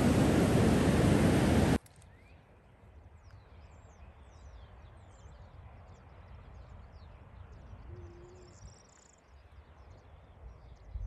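Loud, steady rushing noise that cuts off abruptly about two seconds in, giving way to a quiet outdoor background with faint, scattered bird chirps.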